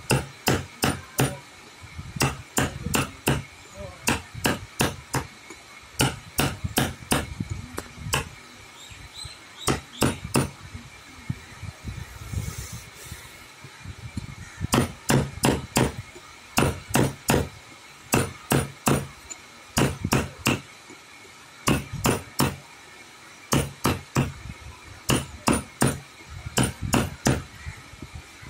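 Hammer strikes in quick runs of several blows, with short pauses between the runs, over a faint steady high-pitched tone.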